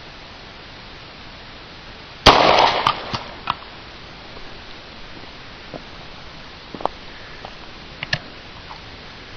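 A single .40-calibre handgun shot fired with full metal jacket ammunition, about two seconds in, echoing briefly, followed by a few light clicks.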